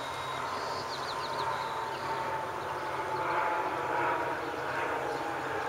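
Fireboat water cannons spraying, a steady rushing of water with a mechanical drone from the boat's engines and pumps underneath, the hum slowly dropping in pitch.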